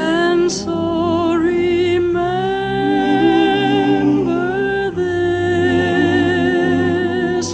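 Background music: a song with a singer holding long notes with vibrato over a steady accompaniment.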